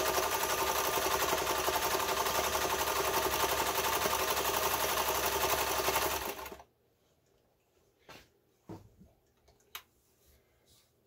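Singer 431G slant-needle sewing machine running steadily, stitching a cam pattern stitch through denim, then stopping abruptly about six and a half seconds in. A few light clicks and knocks follow.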